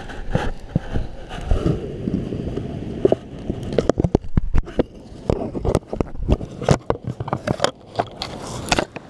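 A long-tailed macaque handling a GoPro in its waterproof housing right at the microphone: irregular knocks, clicks and scraping of its hands on the case, with dry leaf litter rustling.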